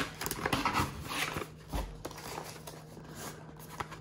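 Hands handling and turning a small cardboard product box, its surfaces rubbing and scraping, busiest in the first second and a half. A faint steady hum runs underneath.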